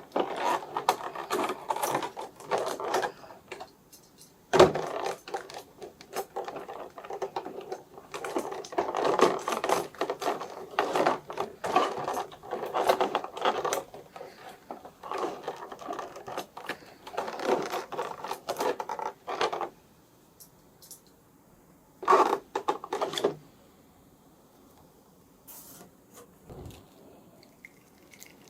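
Unboxing handling noise: plastic packaging and parts being rustled, crinkled, scraped and clicked in dense runs, with a sharp knock about five seconds in and a short burst near the end.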